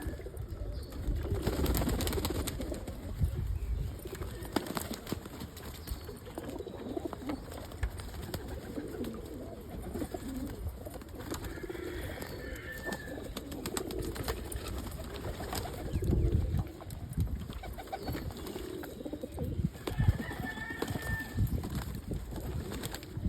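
Pigeons cooing on and off in a loft, low repeated coos, with scattered small clicks and a few louder thumps about two-thirds of the way through and near the end.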